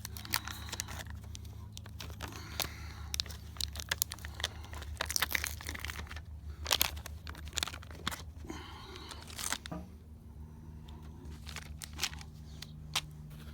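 Irregular rustling and crinkling with scattered small clicks from hands working a tubeless tire plug and its T-handle insertion needle, over a steady low hum.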